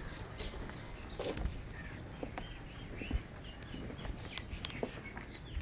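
Small birds chirping here and there, short scattered calls, with a few sharp clicks or taps over a steady low rumble.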